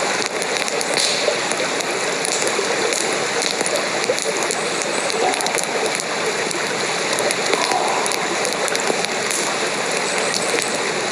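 Steady rain falling, an even hiss with many small sharp ticks scattered throughout.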